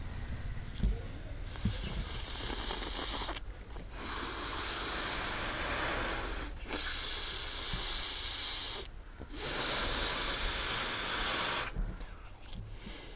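Repeated slow breaths in and out of a latex balloon of nitrous oxide (laughing gas): gas rushing through the balloon's neck in hissing breaths of two to three seconds each, about four of them, with short pauses between.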